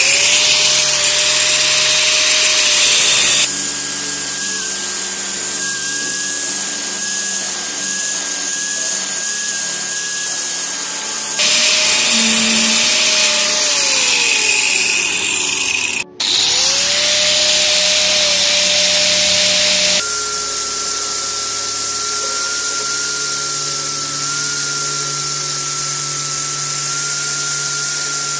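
Angle grinder working steel saw blade: the motor whines up to speed and runs with a steady whine over a dense grinding hiss, winds down with a falling whine about twelve seconds in, then spins up again.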